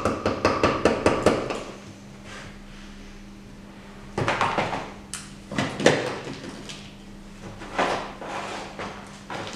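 Mallet striking a steel chisel, chipping plaster off a waste mold to free the cast beneath. The blows come in a quick run of about six at the start, then after a pause in short clusters of a few knocks each.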